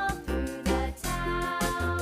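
Upbeat children's background music with a steady beat.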